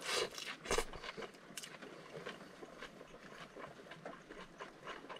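A person eating a bite of fried fish: a few soft clicks and rustles in the first second and a half, then faint chewing.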